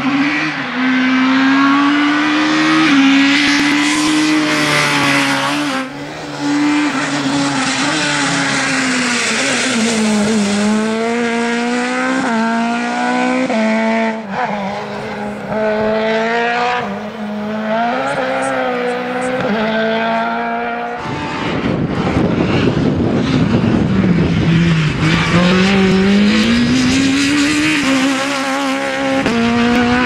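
Rally car engines at high revs on a gravel stage, in several short clips: the engine note climbs under throttle and drops back at each gear change. About 21 seconds in, a car comes close with a rough rushing noise over the engine, its note dipping and then rising again.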